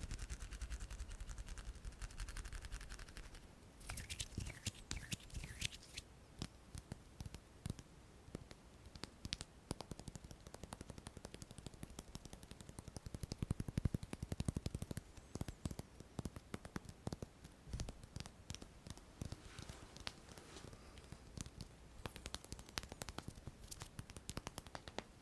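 Hand sounds close to the microphone: many quick, light fingertip taps and clicks, some in rapid runs, with soft rubbing near the start and toward the end.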